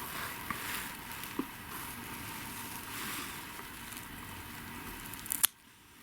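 Soft rustling and handling noise while a cat's claws are clipped, with a couple of faint clicks and then one sharp click near the end, the clipper snipping the last claw.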